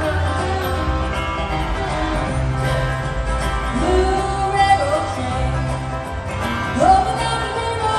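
Acoustic bluegrass band playing a brisk tune on two flat-top guitars, banjo, mandolin, fiddle and upright bass, heard in a live concert recording. About halfway through and again near the end, a long note slides up and is held over the picking.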